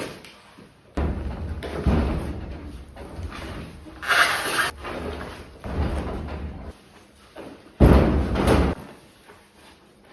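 Plywood sheets being handled and set against a wall: a series of knocks and thumps, with a scraping noise about four seconds in and the loudest thump near the end.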